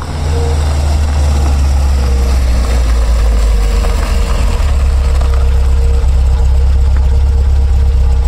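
Recorded car engine sound effect played through the hall's speakers: a loud, steady low engine rumble, idling.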